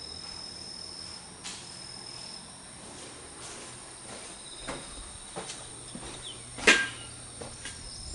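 Insects chirring in the grass, a steady high trill that stops and starts over a constant high hiss. A few soft knocks, and one sharp click about two-thirds of the way in that is the loudest sound.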